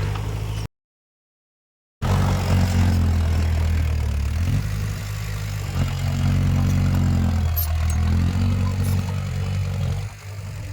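Heavy diesel earthmoving machinery running, a deep steady engine note that dips and rises several times as the load changes. The sound drops out to total silence for about a second near the start.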